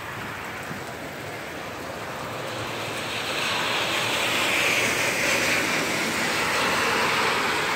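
Car tyres hissing through standing water on a flooded, rain-soaked road, swelling about two and a half seconds in and then holding steady.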